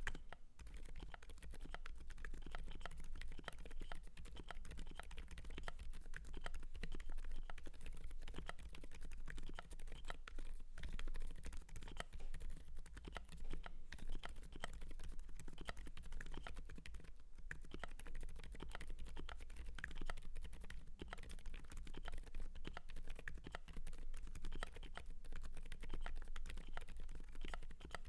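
Continuous typing on an FL.eSports FL980 mechanical keyboard with lubed and filmed Gazzew Boba U4 silent tactile switches and Akko ASA keycaps: a dense run of quick key presses, with a couple of brief pauses.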